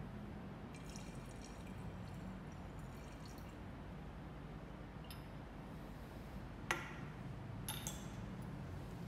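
Distilled water poured in a faint trickle from a small glass vessel into a glass separatory funnel. About two-thirds of the way through there is one sharp glass clink, then a couple of lighter clinks, over a low steady room hum.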